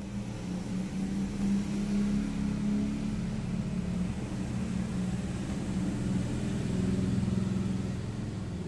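Steady low mechanical hum of a running motor, swelling a little about two seconds in and again near the end.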